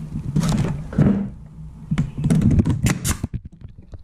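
Wooden boards being handled and set in place on a workbench: a couple of short scrapes, then a quick run of knocks and clatters of wood on wood.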